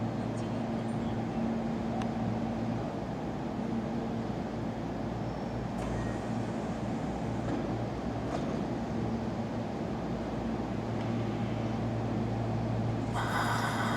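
Steady electrical and mechanical hum of a JR West 225 series and 223 series electric train standing at a station platform. About 13 seconds in, a sudden brighter sound with high steady tones cuts in as the train begins to get under way.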